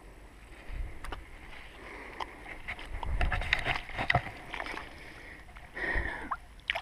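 Splashing and swishing of footsteps through shallow marsh water and wet grass, with scattered clicks and knocks and wind rumble on the microphone.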